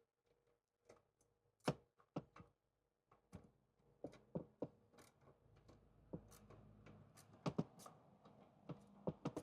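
Irregular light clicks and knocks of a wrench on metal as the exhaust header nuts are tightened by hand.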